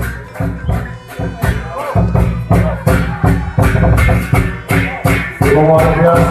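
Music with a fast, steady beat of drum and cymbal-like hits, about three a second; near the end, held melodic tones come in over the beat.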